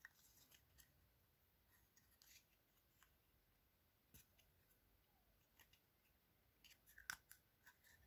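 Faint, scattered clicks and short scrapes of a steel snap-off utility-knife blade working against plastic bottle caps, with a quick cluster of clicks near the end.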